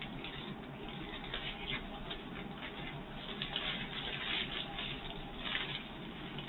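Small plastic bags of diamond-painting drills rustling by hand as they are sorted through, in irregular bursts of crinkling that are busiest in the middle.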